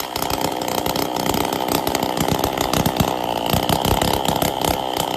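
Kisan Kraft KKBC 555 two-stroke brush cutter engine running steadily with its silencer removed. The silencer was blocked with mud, which had kept the engine from starting.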